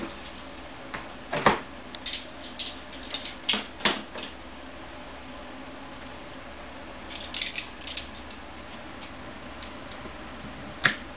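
Knife and carving work on a cutting board as a roast chicken is cut apart: scattered knocks and clicks, the loudest about a second and a half and four seconds in, a run of lighter clicks around seven to eight seconds, and another sharp knock near the end, over a steady low hum.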